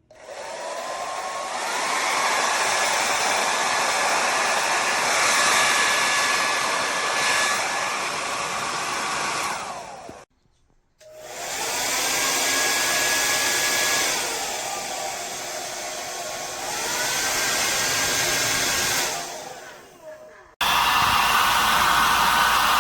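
Slopehill 1800W ionic hair dryer blowing, switched on and off several times. Each start brings a rising motor whine as it spins up. Partway through, the motor pitch steps down to a lower speed setting for a few seconds and back up. Near the end it starts again abruptly.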